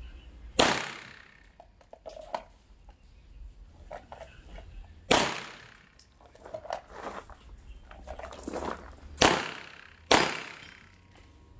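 Glock 17 Gen 5 9mm pistol firing single shots at steel plates: three loud shots about four seconds apart, each with a decaying tail, and a fainter crack near the end. The gaps come from the shooter drawing from the holster and re-holstering between shots.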